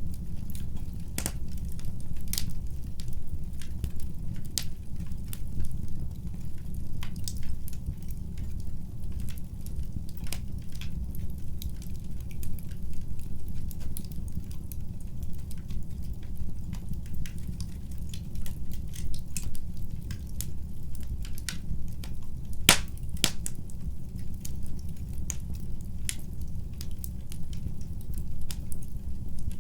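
Wood fire crackling in a fireplace: a steady low rumble of burning with frequent irregular sharp pops and snaps, a couple of louder pops a little past two-thirds of the way through.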